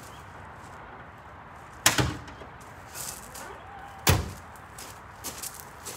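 A door slammed shut twice, about two seconds apart, each a heavy thud, with a few lighter knocks between.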